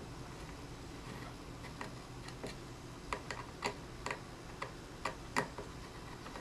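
Scattered light clicks of an Allen key and screws being worked in the plastic body shell of a BT TM7 paintball marker, as the main body screws are taken out; the clicks come irregularly and bunch up in the second half.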